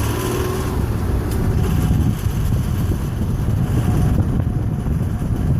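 2006 Lexus ES 330 driving, heard through a microphone held outside the car: a steady, dense low rumble of engine, road and wind noise.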